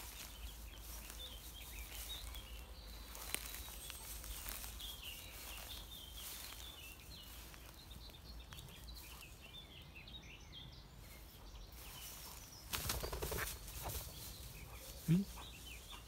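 Small birds chirping faintly across an open meadow. About thirteen seconds in comes a brief noisy rustle, and soon after a short low call that rises in pitch, the loudest sound.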